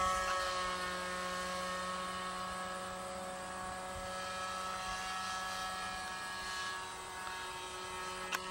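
Radio-controlled P-51 model plane's motor and propeller flying by, a steady pitched drone that holds nearly level in pitch. There is a short click near the end.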